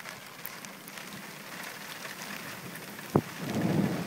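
Steady rain falling on the car during a thunderstorm. About three seconds in there is one sharp crack, then a rumble of thunder starts to swell near the end.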